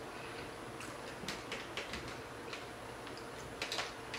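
Quiet, scattered crisp crunches and clicks of eating loaded nachos: tortilla chips chewed and picked at by hand, a few close together in the middle and near the end.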